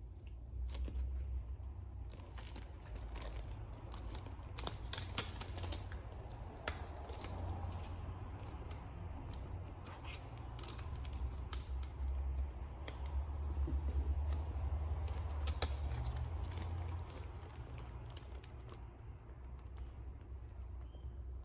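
Packaging being cut open and handled: scissor snips among paper and plastic rustling, with a quick cluster of sharp clicks about five seconds in.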